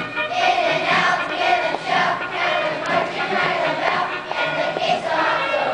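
A choir of children singing together over musical accompaniment.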